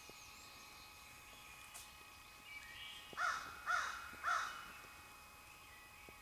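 A crow cawing three times in quick succession, about half a second apart, midway through.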